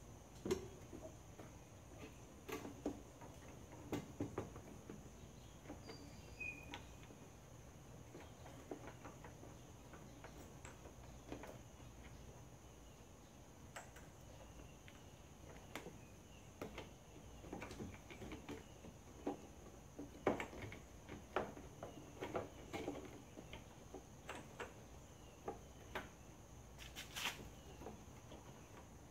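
Scattered light clicks and knocks as a fuel sending unit is worked back into a pickup's fuel tank by hand, over a steady high insect drone.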